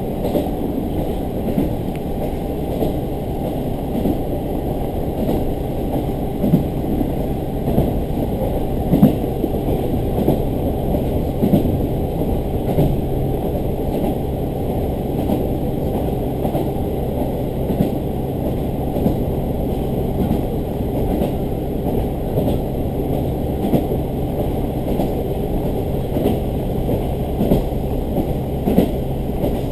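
Diesel railcar running along the track, heard from inside the cabin: a steady low engine and running hum, with scattered light knocks from the wheels on the rails.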